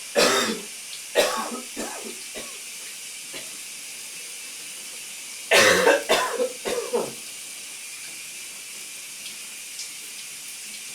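A man coughing in bouts over the steady hiss of a running shower: two hard coughs at the start, a few smaller ones trailing off, then a louder fit of several coughs in quick succession about halfway through.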